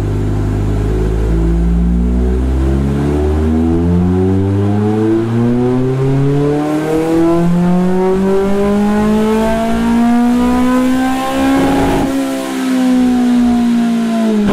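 Toyota Blacktop 20-valve 4A-GE four-cylinder engine doing a full-throttle dyno pull with no exhaust fitted past the modified 2-1 front pipe. It holds low revs for a few seconds, then the pitch climbs steadily for about nine seconds, tops out, and falls away near the end as the throttle is lifted.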